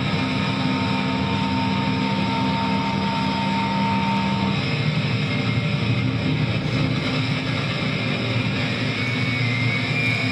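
Electric guitar played loud through an amplifier as a dense, distorted drone: a steady wall of sound with held notes. The held notes shift to lower ones about halfway through.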